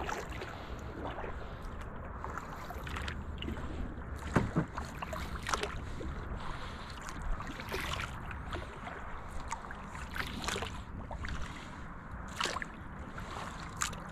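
Paddle strokes in calm water from a small canoe: the paddle dips and splashes, with irregular sharp knocks, likely the paddle against the hull, the loudest about four seconds in.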